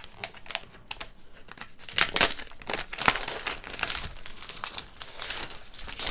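Clear plastic wrapping crinkling irregularly as it is pulled off a device by hand, loudest about two seconds in.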